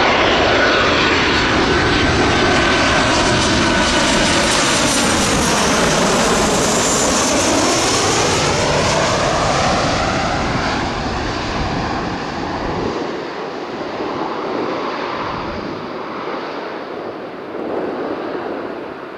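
Boeing 737 airliner passing low overhead on final approach: loud jet engine noise with a high fan whine in the first few seconds, peaking as it passes and then fading as the aircraft flies on toward the runway.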